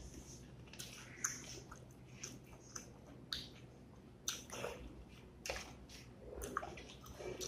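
Close-up eating sounds: wet mouth smacks and chewing, with fingers squishing rice into the pulse (dal) gravy on the plate. Irregular short clicks and smacks.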